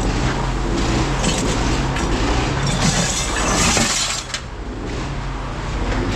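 Pieces of scrap metal clattering and rattling as they are handled and dropped, loudest about three seconds in and stopping abruptly a second later, over a steady low hum.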